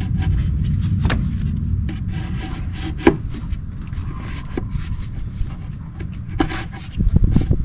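Scraping and a few sharp knocks as a replacement alternator is worked into place in a car's engine bay, over a steady low rumble.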